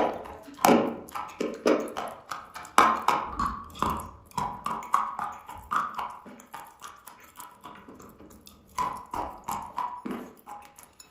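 Close-up crunching and chewing of moistened chalk, a wet crunch. A sharp bite opens it, followed by a dense run of quick, irregular crunches. These thin out and go quieter past the middle, then a few louder crunches come back near the end.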